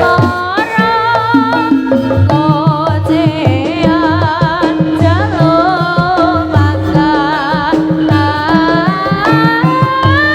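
Javanese jaranan senterewe accompaniment music: an ornamented melody line with a strong wavering vibrato over held tones and busy low drumming.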